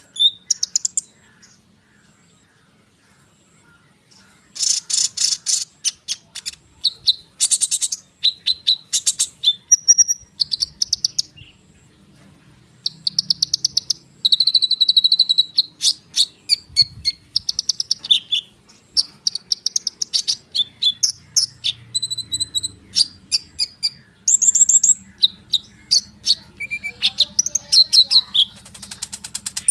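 A konin songbird singing a dense, rolling song of rapid high chirps and trills, with a pause of a couple of seconds near the start and a brief lull about halfway through.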